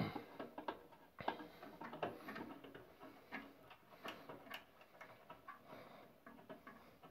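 Scattered light clicks and small knocks of parts being handled as the work table is fitted to a Ryobi benchtop belt and disc sander, with no motor running.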